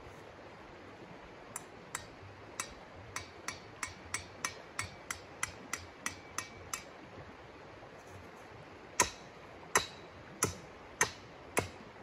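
Tent stakes hammered in with a mallet. First comes a run of about fifteen light, quick taps, roughly three a second, then five hard, ringing blows about two-thirds of a second apart near the end. The steady rush of a creek runs underneath.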